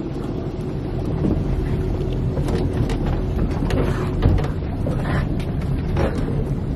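Boat motor running steadily at trolling speed, with wind noise on the microphone and a few light knocks.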